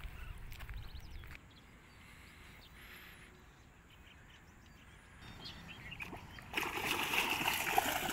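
A hooked fish thrashing at the water's surface close to the bank, with loud splashing that starts suddenly about six and a half seconds in after a quiet stretch.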